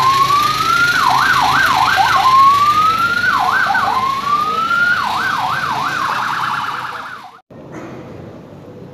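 Police ambulance's electronic siren sounding, switching between quick rising-and-falling cycles and slow single upward sweeps, then a fast warble that fades out about seven seconds in. After that only a much quieter background remains.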